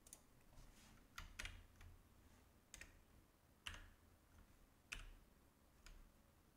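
Faint computer keyboard keystrokes: about ten separate clicks at uneven intervals, some in quick pairs.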